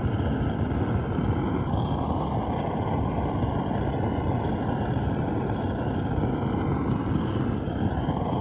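Small two-horsepower outboard engine on a compact kayak, running steadily under way, mixed with rushing wind and water noise; it starts and cuts off abruptly.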